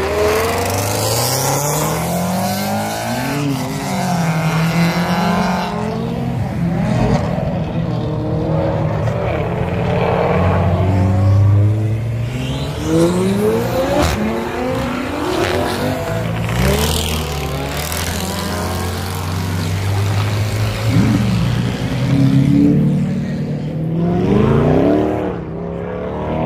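Car engines revving again and again, each rev climbing sharply in pitch and dropping back, with engines running at a low steady note between the revs.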